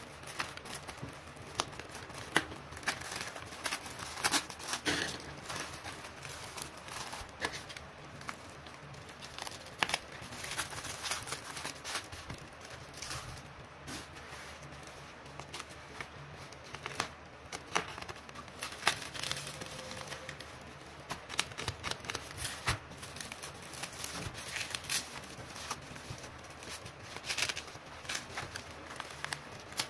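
A plastic courier mailer and bubble wrap being handled and cut open with a box cutter: irregular crinkling, rustling and tearing of plastic film, with sharp crackles throughout.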